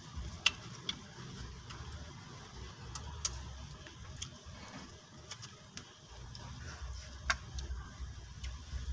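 Close-up eating sounds of grilled chicken and rice eaten by hand: chewing and mouth noises with a few short sharp clicks, the loudest about half a second in and near the end, over a low steady rumble.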